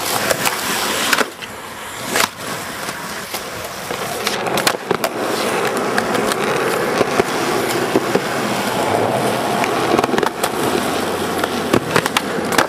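Skateboard wheels rolling on street asphalt: a continuous rough rumble that gets louder a few seconds in. Sharp clacks of wheels and board striking the ground come now and then, including near the end as the skater pops a trick.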